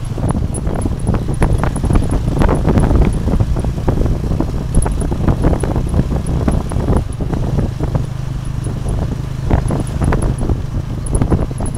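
Ride in a motorbike-drawn tuk-tuk carriage: the small motorcycle engine runs steadily, and the carriage rattles and knocks over the road surface.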